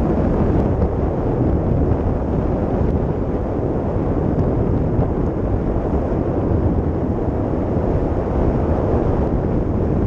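Wind from paragliding flight buffeting a GoPro action camera's microphone: a loud, steady low rush.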